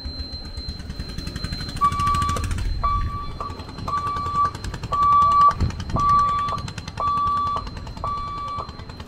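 Level-crossing warning beeper sounding a single tone about once a second, each beep about half a second long, starting about two seconds in, over a fast, even rattling, signalling that a train is approaching the closed gate.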